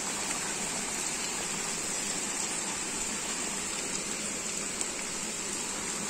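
Steady rain falling, an even hiss of rain.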